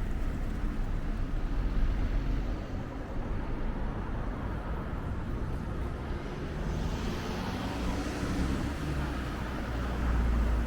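Urban road traffic: a steady rumble of passing cars, with a brief rise in tyre hiss about seven seconds in.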